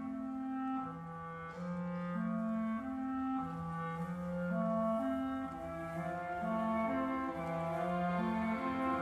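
Slow orchestral ballet music: wind instruments playing long, held notes, with a low line stepping slowly up and down beneath a higher sustained melody.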